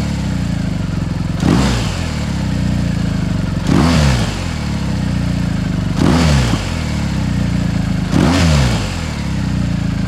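BMW R1250GS Adventure boxer twin, on its standard catted header with a Jekill & Hyde exhaust, its valve open for a deep note, idling and blipped four times, each rev rising sharply and falling back to idle about every two seconds.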